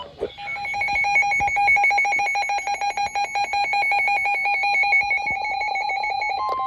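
Electronic emergency alert tone, a rapid, even pulsing warble between two pitches, shifting to a different tone right at the end.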